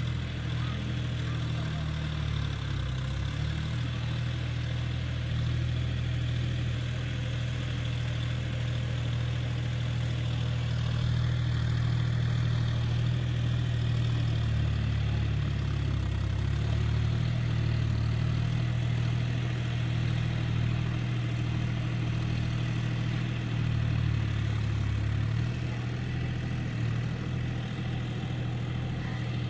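John Deere tractor's diesel engine running steadily as the tractor tills a field, its note shifting slightly near the end.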